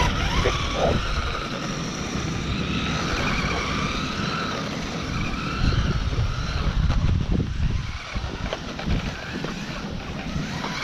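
Small 390 brushed electric motor of a 1/16-scale RC drift car whining, its pitch rising and falling as the car speeds up and slows, with wind rumbling on the microphone.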